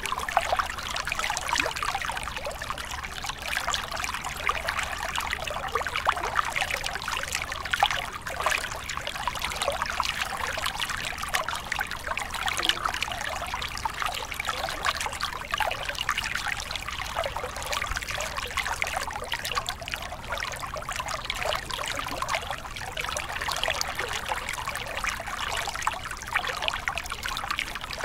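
Small mountain stream trickling and splashing over a short rocky cascade into a pool: a steady, bright sound made of many fine splashes, with little low rumble.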